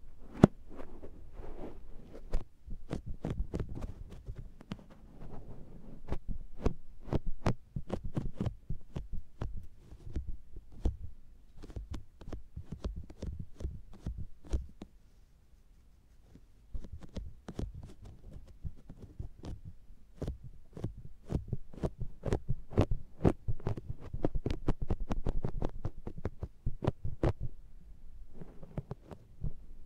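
Makeup sponge patting and pressing on the ears of an SR3D binaural microphone: a steady run of soft, sticky, suction-like pats with dull thumps, pausing briefly about halfway through.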